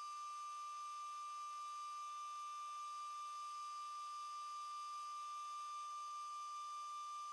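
Metal lathe running a light cut along a 12L14 steel test bar: a steady high-pitched whine with overtones.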